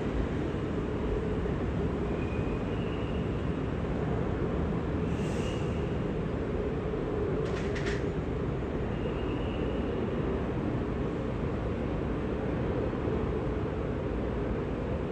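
Jet airliner engines running steadily, heard as an even low rumble. A few faint short high chirps and a brief rattle of clicks about halfway through.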